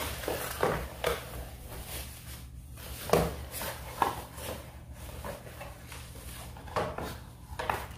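Tissue paper rustling and crinkling while a cardboard box is handled and its flaps pulled open, with a few sharper knocks of the cardboard.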